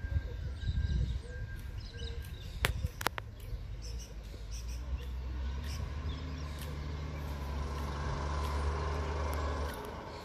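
Side-loading recycling truck's engine running at a distance with a steady low rumble, and a couple of sharp metallic clanks about three seconds in. The rumble drops away just before the end.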